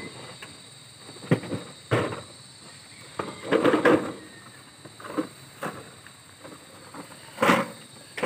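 Plastic beer crates loaded with glass bottles being lifted and set down: a string of irregular knocks and rattles, with a longer clatter midway and a sharp knock near the end.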